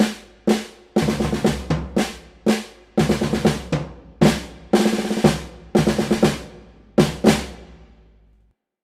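Snare drum played in single strokes and short rolls, with some strokes coming in pairs. The last pair rings out and fades to silence near the end.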